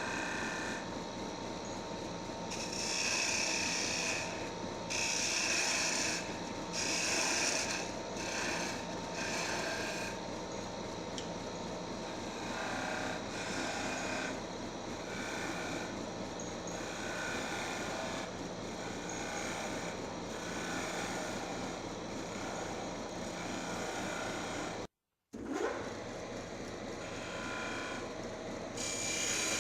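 Wood lathe running with a steady hum while sandpaper is held against the spinning wooden workpiece, giving repeated rasping strokes of a second or so: sanding and polishing the turned piece. The sound drops out for a moment near the end.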